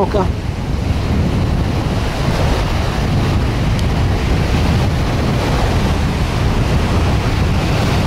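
Sea surf washing and breaking on a sandy shore, with strong wind buffeting the microphone in a steady low rumble.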